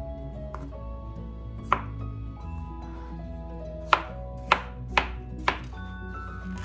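Chef's knife chopping Hami melon on a cutting board: one cut, then four sharp knocks of the blade on the board about half a second apart.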